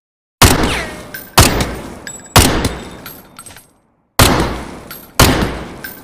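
Uzi submachine gun firing: five loud reports about a second apart, three, then a short pause, then two more. Each one has a long echoing tail that fades away.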